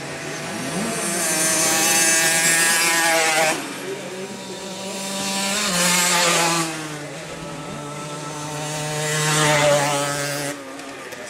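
50cc two-stroke motocross bikes passing on the track, three times. Each engine revs up, rising in pitch, then cuts off sharply as the rider comes off the throttle or goes by.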